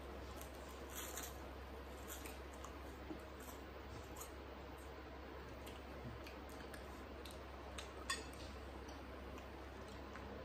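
Quiet eating sounds: faint scattered crunches and clicks from chewing crunchy cheese balls and a fork working a plate of pasta, with a sharper click about eight seconds in.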